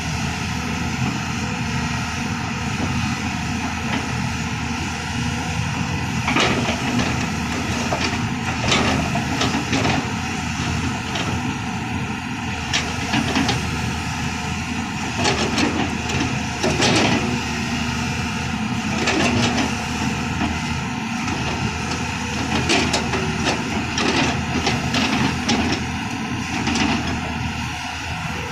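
Backhoe loader's diesel engine running steadily, with repeated clanks and scrapes as the machine digs.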